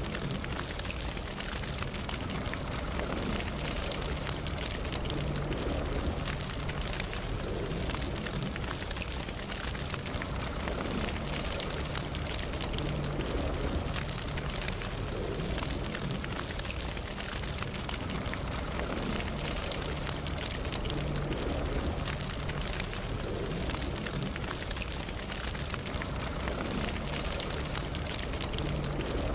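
Campfire burning, with a constant stream of small crackles and pops from the wood over a steady hiss and low rumble of the flames.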